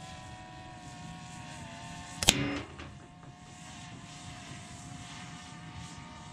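A single sharp crack of an Umarex Ruger Impact Max break-barrel air rifle shot about two seconds in, with a short ringing tail, over a steady engine-like drone.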